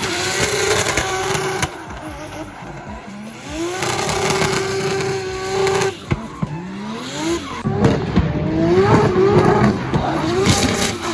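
Drift car engine revving hard and holding high revs, falling off and climbing again with the throttle, with tyres squealing as the car slides sideways.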